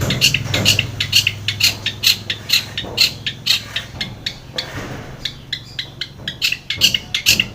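Long-tailed shrike (cendet) calling in a fast run of short, sharp chipping notes, about four or five a second.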